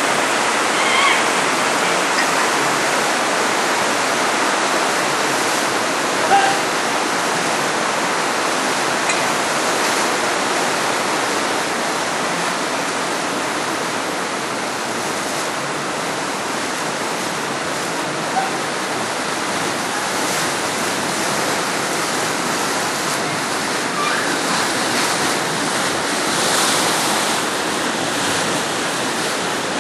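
Shallow river rushing over rocks, a steady rush of water.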